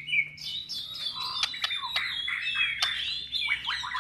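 White-rumped shama (murai batu) singing a continuous, varied song of whistles and slurred, sweeping notes, with sharp clicking chips mixed in.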